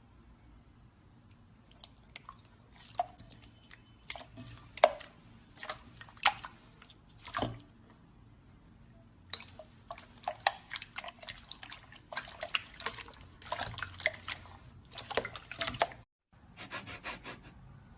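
Liquid slime being squished and poked by hand, giving irregular runs of small wet clicks and sticky pops, with a short break about 16 seconds in.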